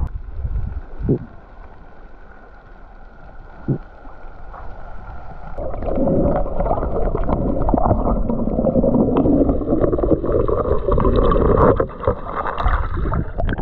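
Water sloshing and rushing around a camera at and under the sea surface, with two brief knocks in the first four seconds, then a louder muffled underwater rush from about six seconds in.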